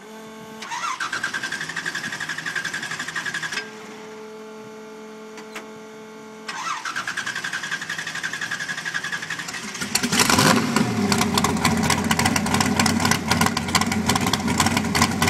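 Drag car's engine cranked by its starter, a whirring that rises in pitch, twice. The first try stops after about three seconds. On the second the engine catches about ten seconds in and runs loud through its open headers.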